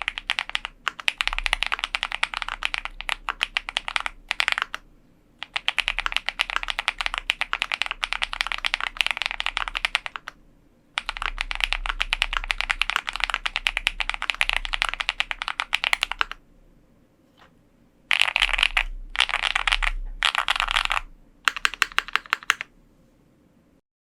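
Typing on an OwLab Mr. Suit custom mechanical keyboard with lubed TTC Holy Panda tactile switches, GMK keycaps, an aluminium plate and a foam-dampened case. Runs of fast keystrokes are broken by short pauses, and near the end come three short bursts and a few separate key presses.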